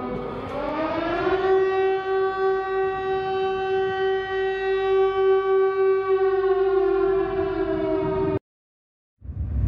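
Air-raid siren wailing: its pitch climbs over the first second or so, then holds steady and sags slightly before cutting off suddenly.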